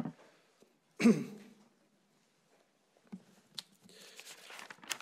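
A man's short vocal sound, like a brief sigh or 'hm', about a second in, then faint rustling with a few light clicks near the end.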